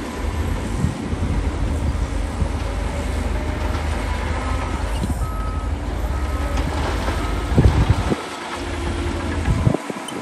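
Heavy diesel earthmoving machinery running under load with a steady low rumble. In the middle, a reversing alarm beeps for a few seconds at an even pace.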